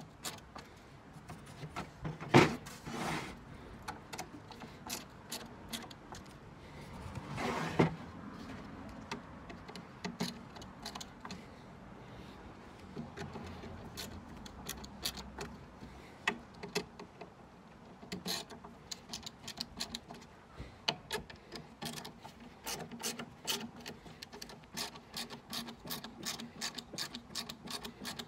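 Hand screwdriver turning wood screws into the slats of a plywood record crate: a run of small clicks that comes faster in the second half, with two louder knocks in the first eight seconds.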